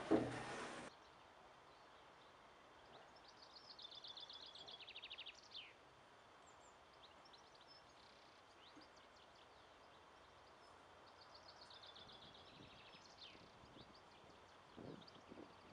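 A songbird singing two trilled phrases of quick repeated notes, each ending in a falling flourish, several seconds apart over faint outdoor background. In the first second, noise from the windmill's turning gearing cuts off suddenly.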